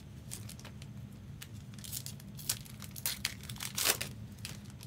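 Trading-card pack wrappers crinkling and rustling as they are handled, in scattered short crackles, the loudest just before four seconds in.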